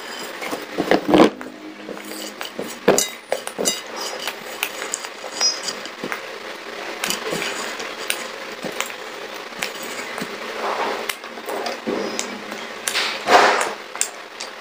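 Close-miked crunching and chewing of pieces of a fired clay pot: irregular sharp, gritty cracks and crackles, loudest about a second in and again near the end.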